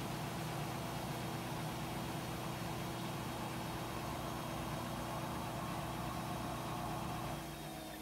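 Front-loading washing machine spinning in its spin cycle, a steady hum as the drum runs at speed. About seven seconds in the hum drops slightly as the drum begins to slow down to rebalance the clothes.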